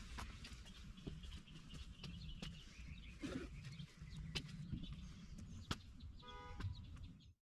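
Faint outdoor background: a low rumble with scattered light clicks and taps, birds chirping, and a short pitched call about six seconds in. The sound cuts off suddenly near the end.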